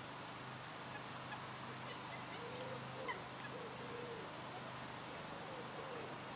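A waterbird calling: a series of short, arched honking calls that begin about two seconds in.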